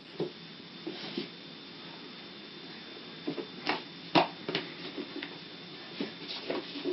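Scattered light taps and knocks at irregular intervals, the loudest a little past the middle, over a steady background hiss with a faint high whine.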